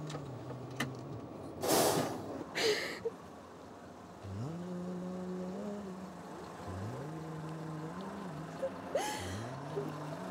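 Coach bus diesel engine revving up, holding and dropping back several times, with loud short hisses of compressed air from its air brakes about two seconds in and again near the end.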